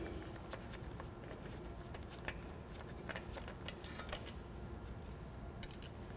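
Faint, scattered clicks and light handling noise from a motorcycle engine's dipstick and oil fill tube being unscrewed and pulled out by a gloved hand.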